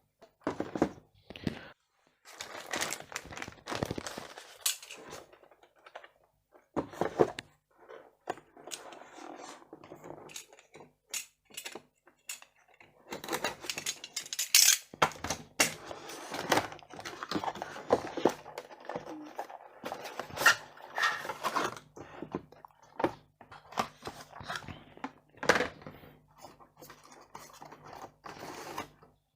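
Retail CPU box and its packaging being opened and handled: irregular clicks, taps and scrapes of cardboard and plastic.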